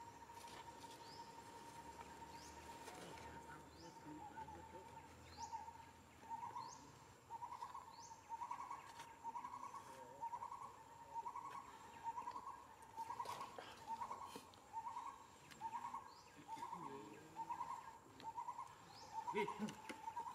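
A bird's call: a faint steady note that after a few seconds breaks into a regular series of short notes at the same pitch, a little over one a second, with a few faint high chirps above it.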